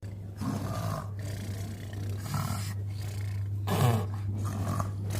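A child pretending to snore: several rough, exaggerated snores at uneven intervals.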